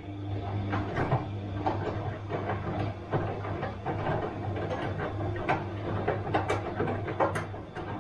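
Bosch washing machine running: a steady motor hum with a dense, irregular patter of clicks and knocks from the turning drum and tumbling load.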